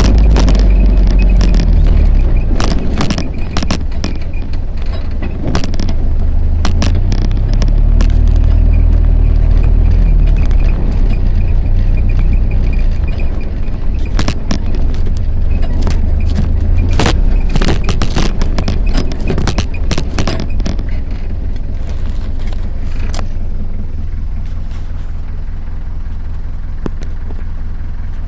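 Motor vehicle driving over rough off-road ground: a heavy engine and road rumble with many sharp knocks and rattles from bumps. It eases off and gets quieter for the last few seconds.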